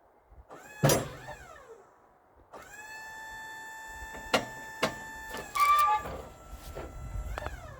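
Small electric motor on a Wood-Mizer sawmill running in short spells: a click about a second in with a whine that falls in pitch as it winds down, then a steady whine from about two and a half seconds in, broken by several sharp clicks, and changing pitch near the end.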